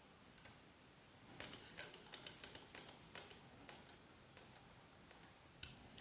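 A quick run of small, sharp clicks and scrapes lasting about two seconds, then one more click near the end: the retaining screw of an M.2 SSD being tightened into the laptop's mainboard standoff.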